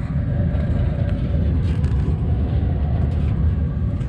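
A steady low rumble with no clear pitch.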